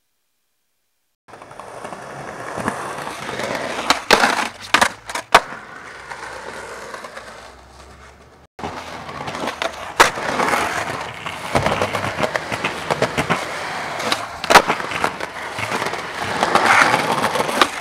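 Skateboard wheels rolling over rough pavement, broken by several sharp clacks of the board hitting the ground. There is no sound for about the first second, and the sound cuts off abruptly and restarts about halfway through.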